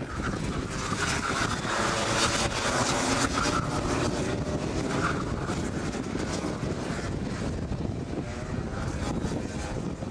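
Several Rotax two-stroke kart engines racing past, their pitch wavering up and down as the karts brake and accelerate through the corners, loudest about one to four seconds in. Wind buffets the microphone with a low rumble underneath.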